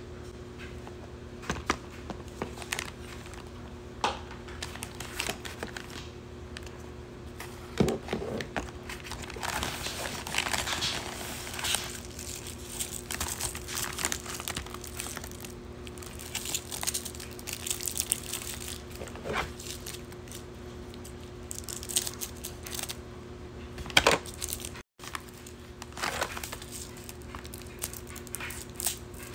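Plastic packaging and a paper shipping bag being handled and crinkled, with scattered clicks and knocks. Scissors cut into a plastic package near the end, over a steady low hum.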